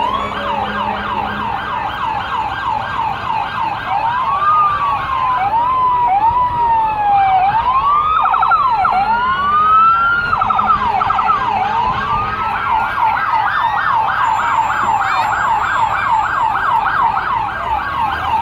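Electronic emergency-vehicle siren on a parade fire-department truck, switching several times between a fast yelp and a slow rising-and-falling wail.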